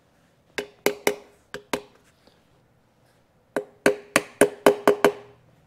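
Clip-on wheel balance weights being tapped tight onto a steel wheel rim with a metal tool. The sharp metallic taps come in two runs, about four at the start and about seven quicker ones from about three and a half seconds in, each with a short ring.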